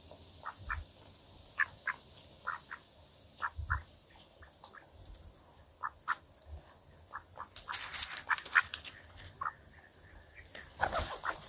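Mallards and pigeons pecking and picking at bread on grassy ground right beside the microphone: irregular sharp bill clicks and pecks, thickening into short flurries of pecking and rustling about eight seconds in and again near the end.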